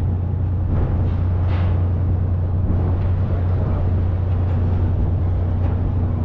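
Fishing vessel's engines and machinery running with a loud, steady low hum.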